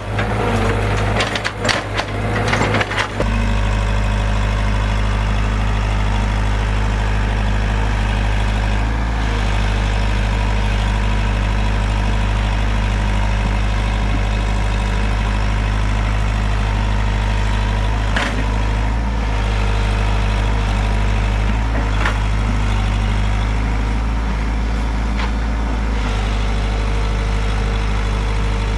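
Wood cracking and splintering for about the first three seconds, then a heavy diesel excavator engine running steadily at a low, even pitch, with a few single knocks along the way.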